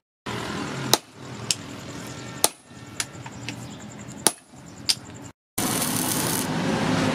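Hammer blows on a chisel held in tongs against red-hot steel on an anvil: six sharp strikes in pairs, a heavy blow then a lighter one. About five and a half seconds in, after a brief break, the steady crackling hiss of stick arc welding begins.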